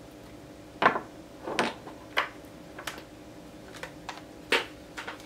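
Irregular light knocks and clicks, about eight in five seconds, the first the loudest: 18650 lithium-ion cells and a wire being handled and the cells set down on a wooden workbench. A faint steady hum lies underneath.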